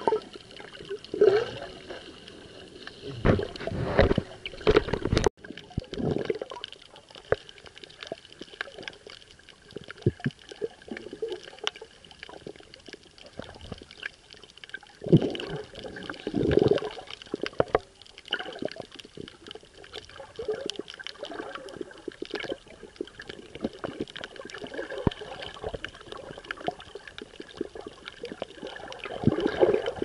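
Underwater sound picked up by an action camera held below the surface on a coral reef: muffled gurgling and sloshing that swells a few times, over a constant fine crackle of small clicks.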